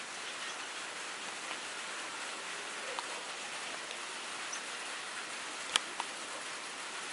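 Steady rain falling, an even hiss, with a few sharp taps of single drops. The loudest tap comes about three-quarters of the way through.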